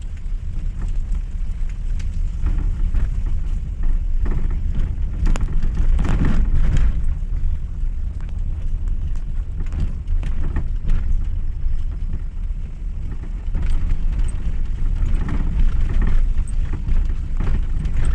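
Steady low rumble of a moving road vehicle, with scattered knocks and bumps.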